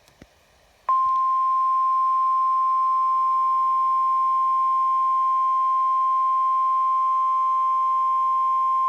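NOAA Weather Radio warning alarm tone, a single steady 1050 Hz tone. It comes in suddenly about a second in after near silence and holds loud and unchanging. It is the Emergency Alert System attention signal announcing a severe thunderstorm watch.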